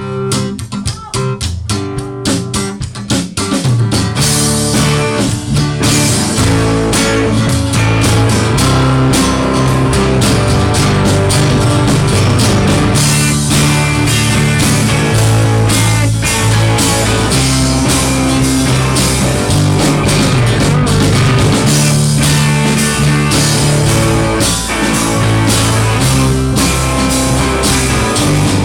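Live rock band playing an instrumental intro: guitar alone at first, then drum kit and bass come in about four seconds in and the full band plays on.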